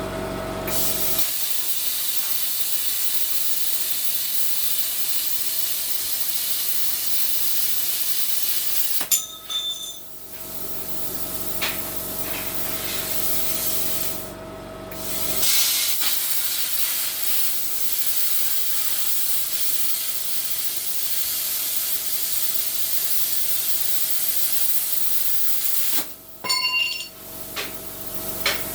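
Plasma cutter cutting: a steady loud hiss of air and arc with a constant whine, stopping briefly about nine seconds in and again near the end, with clicks as the torch trigger is released and pulled again.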